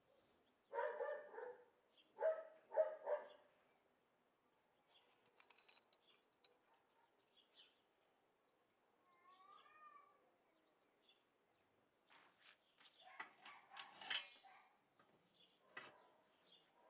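A dog barks three times in quick succession in the first few seconds. Faint bird chirps follow, then a run of sharp clicks or taps.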